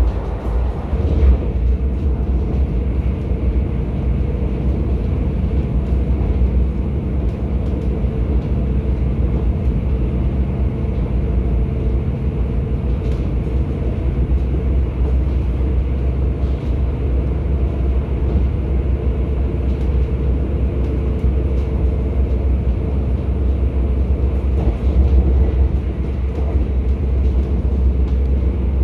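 Steady low rumble of a moving passenger train heard from inside the carriage, wheels running on the rails, with a few faint clicks along the way.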